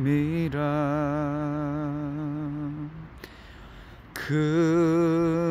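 A man singing a slow Korean worship song unaccompanied, holding a long note with vibrato, breaking off about three seconds in, then coming back in on the next sung word about a second later.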